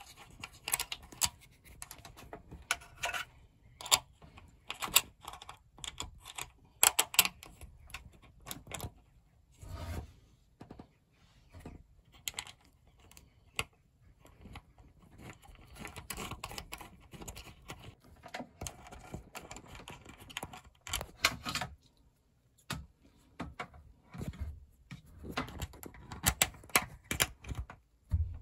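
Irregular small clicks, taps and scrapes of fingers working close up on a MIDI fuse holder, handling the nut on its stud and fitting a yellow crimped ring terminal on red cable over it.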